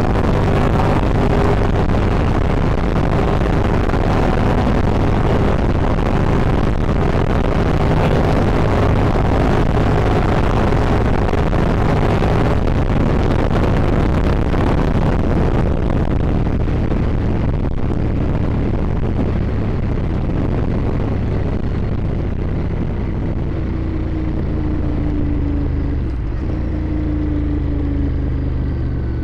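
Ducati Streetfighter motorcycle under way: engine running under heavy wind rush over the microphone. In the last third the wind noise eases and the engine note drops as the bike slows.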